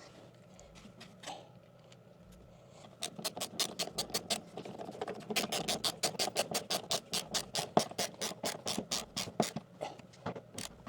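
Rapid, even ratcheting clicks from a hand-worked mechanism, about five a second. They start about three seconds in and stop shortly before the end, with quieter handling and scraping around them.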